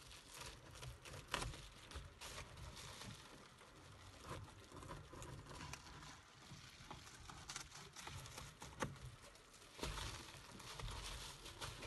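Faint crinkling and rustling of silver bubble-foil insulation being handled and trimmed with scissors, with scattered small snips and clicks.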